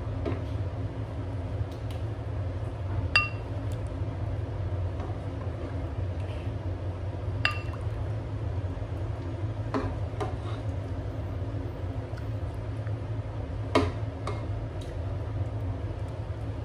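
Ladle clinking against a bowl and pot while curry is served out: a few sharp, ringing clinks several seconds apart over a steady low hum.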